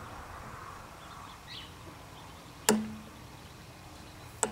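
Two sharp metal clicks about a second and a half apart, as a hooked metal hand tool catches and snaps off a small screw lodged in a tire's tread; the first has a short low ring after it.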